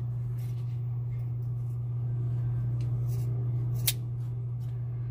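Scissors cutting through thick box braids: a few soft cuts and one sharp snip about four seconds in, over a steady low hum.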